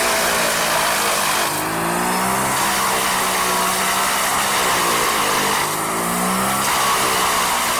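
Heavy machinery running, its pitch sweeping up and down in a repeating cycle about every four seconds.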